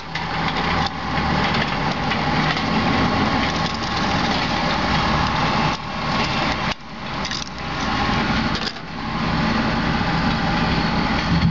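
An engine idling steadily, with brief drops in level about seven and nine seconds in.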